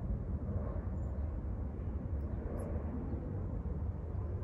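Steady low background rumble, with a few faint high chirps.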